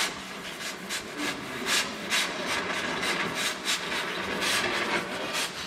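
Oxy-fuel cutting torch hissing as it melts through a steel bolt, with uneven surges of hissing spatter two or three times a second as molten metal and sparks blow out.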